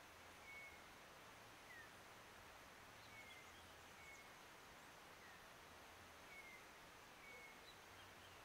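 Quiet natural ambience with a small bird giving short, high chirps every second or so, over a faint low hum.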